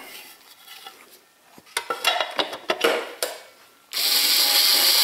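Light clicks and knocks of parts being handled, then about four seconds in a cordless electric screwdriver starts and runs steadily, driving a screw to hold down the stand mixer's cover.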